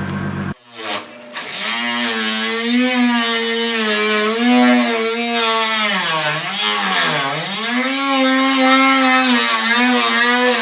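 High-speed rotary tool (Dremel) cutting plastic bumper material: a steady motor whine with a hiss from the cut. The pitch sags twice about six to seven seconds in as the tool bogs under load, then comes back up.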